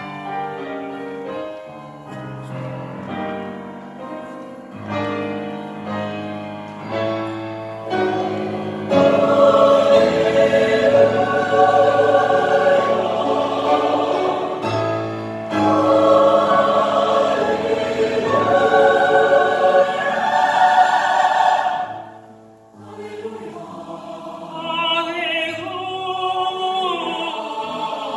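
Mixed choir singing an anthem, softer at first, then swelling loud and full about nine seconds in. It breaks off briefly a little after twenty seconds and comes back softer, the higher voices wavering.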